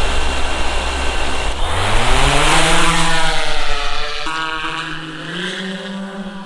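Quadcopter drone motors and propellers running hard as it lifts off. First a rush of propeller wash with a steady high whine; about two seconds in, a buzzing hum rises in pitch, holds, dips, and climbs again near the end.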